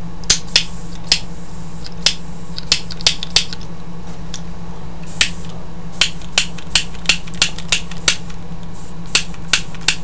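Small metal lighter clicked about twenty times in uneven runs as it is worked again and again without catching: a finicky lighter that fails to light.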